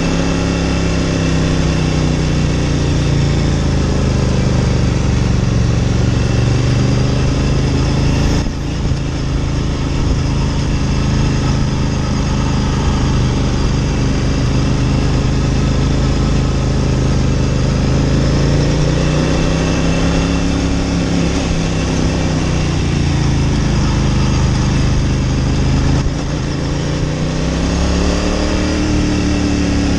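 Ducati Monster 900's air-cooled L-twin engine running under way on a ride, its pitch rising and falling with the throttle. The sound drops briefly about eight seconds in and again near the end before picking back up.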